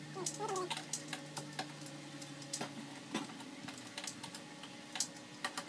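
Irregular light clicks and taps, with a few sharper ones about three seconds and five seconds in, over a faint steady hum.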